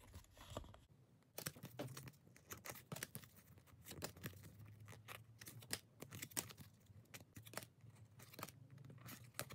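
Faint, irregular slides and soft clicks of glossy 1993-94 SkyBox Premium basketball cards being flicked through by hand, one card at a time pushed off the front of the stack.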